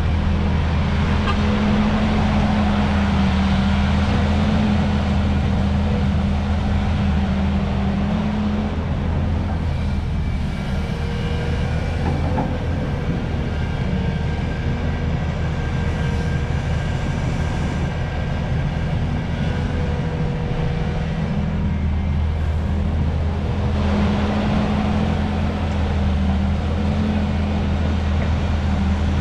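Hydraulic excavator's diesel engine running steadily while digging. Its low drone eases for a stretch in the middle and picks up again, and a thin whine comes and goes meanwhile.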